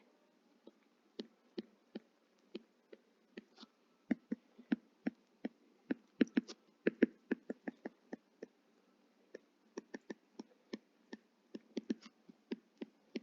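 Light, irregular key clicks from typing on a keyboard, a few taps a second, with short pauses between bursts.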